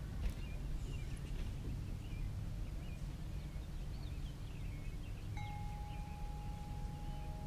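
Outdoor night ambience by the water: a steady low rumble with small scattered chirping calls. About two-thirds of the way in, a steady sound of several held pitches begins and carries on to the end.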